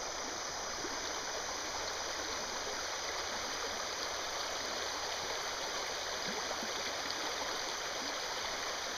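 River water rushing over a shallow rocky riffle: a steady wash of flowing water.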